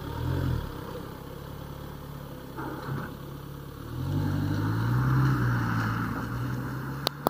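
Car engine ticking over, then pulling away about four seconds in with a rising, then steady engine note and tyres hissing on wet asphalt. A single sharp click near the end.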